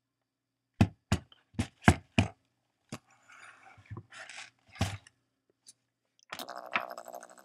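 Dubbed-in comedy sound effects: five sharp knocks in quick succession, then some softer scraping with a few more knocks, and about six seconds in a steady rapid rattling croak starts up.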